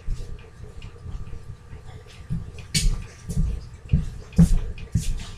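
Footsteps thudding on a floor, with scattered clicks and knocks of things being handled; a few sharper knocks come near the end.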